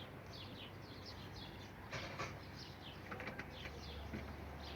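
Birds chirping faintly in the background, many short high chirps, over a faint steady low hum.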